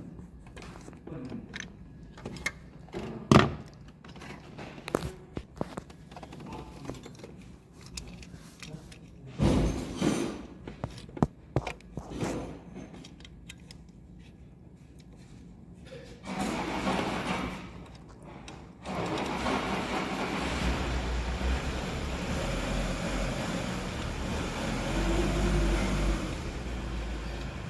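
Scattered metallic clinks and knocks of hand tools and engine parts being handled, then from about nineteen seconds in a steady rumbling vehicle noise.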